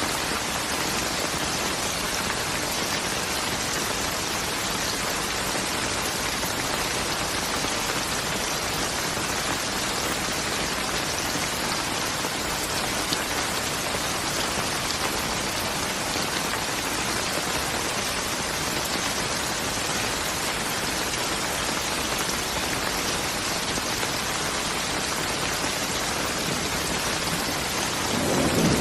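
Steady rain falling, an even hiss of drops on surfaces. Right at the end a low rumble of thunder begins to build.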